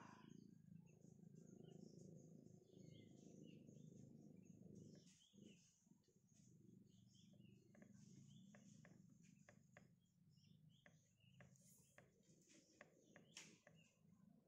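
Near silence: faint outdoor ambience with scattered small bird chirps over a low rumble, and from about halfway on a run of faint sharp clicks or rustles.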